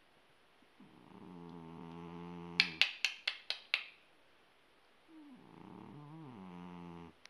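Persian cat snoring like a person: two long, rumbling snoring breaths, with a quick run of six sharp clicks between them.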